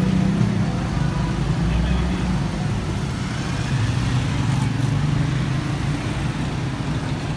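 Street traffic noise with a vehicle engine running steadily close by, its low hum drifting a little in pitch.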